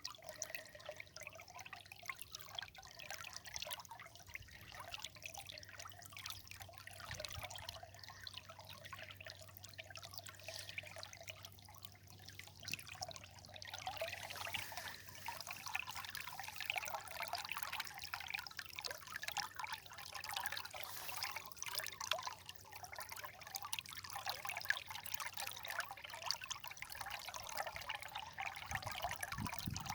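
River water trickling and burbling in a continuous, even flow, a little louder from about halfway.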